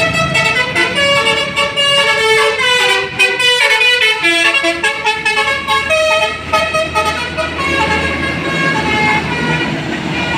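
Indonesian bus 'telolet' multi-tone horn of the Basuri type playing a tune of quickly changing notes, with the bus engine running underneath.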